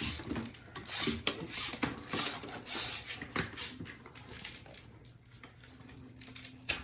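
Handling noise: rustling, scraping and many small clicks as wire and small parts are handled, settling down after about five seconds. A faint steady hum comes in near the end.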